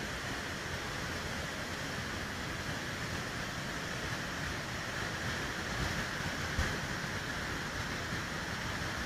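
Muddy floodwater of a flash flood rushing in a steady, unbroken roar of churning water, with a low thump about six and a half seconds in.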